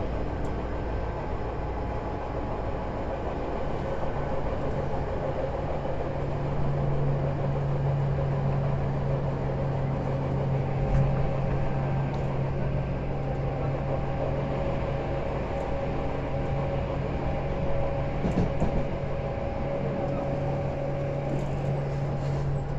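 Tobu 10030 series electric train running, heard from inside the car: a steady rumble of wheels on rail with a low motor hum that strengthens about six seconds in.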